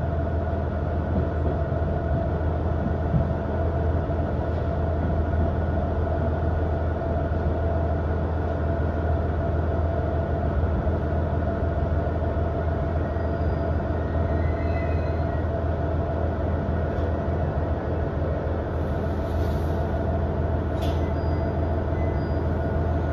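Interior running noise of a KiHa 110 series diesel railcar: a steady low diesel drone with a few steady tones above it as the train runs alongside a station platform. One short click near the end.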